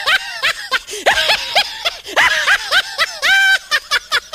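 High-pitched laughter in quick runs of short 'ha' bursts, with a longer held squeal near the end. The pitch is far above a lion's voice, so this is a human or comic laugh dubbed over the lion clip.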